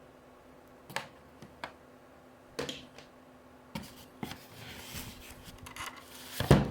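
Hands handling a small boxed rechargeable lamp and its packaging: scattered sharp clicks and taps, then a stretch of rustling, and a louder knock near the end.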